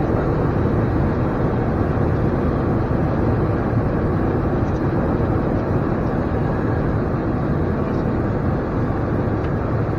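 Steady rushing noise in the cockpit of an Embraer E175 jet on approach: airflow past the flight deck with the drone of the engines beneath it.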